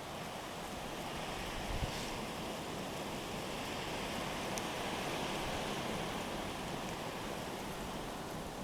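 Nor'easter wind blowing through the snowstorm, a steady rushing that swells in the middle and eases toward the end, with a small bump of wind on the microphone about two seconds in.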